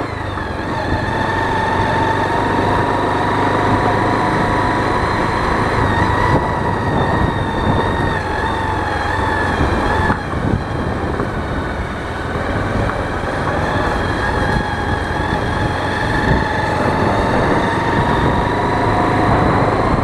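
Motorcycle engine running at a steady cruising speed on a dirt track, a continuous whine that dips briefly a couple of times, under road and wind noise.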